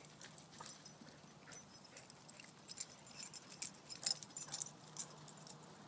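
Faint scattered rustles and light metallic jingles of dogs running across leaf-strewn grass with their collar tags, busiest about three to four and a half seconds in.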